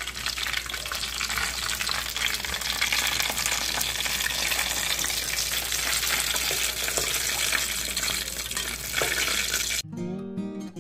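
Hot rendered chicken fat sizzling and crackling in a small frying pan, with a spatula scraping the pan as the fat is poured into a pressure cooker. About a second before the end it cuts off abruptly to acoustic guitar music.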